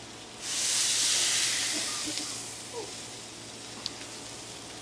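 Birria consommé hitting a hot flat-top griddle: a sudden loud sizzle and steam hiss about half a second in, fading away over the next two to three seconds to a lower steady sizzle.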